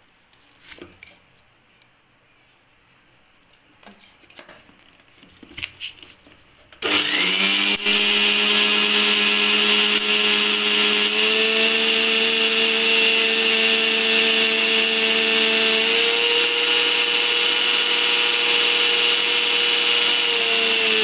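Near silence with a few light clicks for the first several seconds. About seven seconds in, an electric mixer grinder starts abruptly and runs steadily at high speed with a whine, grinding dry-roasted gram and cardamom to a fine powder in its steel jar. Its pitch steps up slightly twice.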